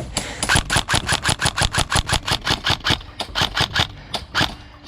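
Airsoft rifle firing a fast, even string of shots, about seven a second, that thins out and turns irregular after about three seconds.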